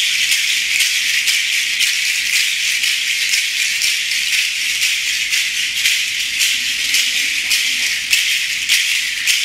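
A hand-held rattle shaken steadily and continuously, with a stronger shake about twice a second.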